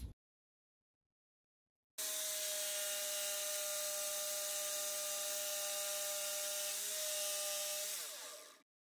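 Cordless jigsaw cutting out a handle slot in a pine board. The motor starts abruptly about two seconds in, runs at a steady pitch, then falls in pitch and winds down to a stop near the end.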